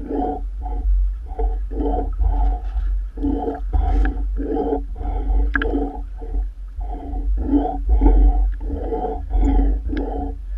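Waves slapping and sloshing against a waterproof camera housing riding at the water surface, in an irregular run of splashes, two or three a second, over a steady low wind rumble on the microphone.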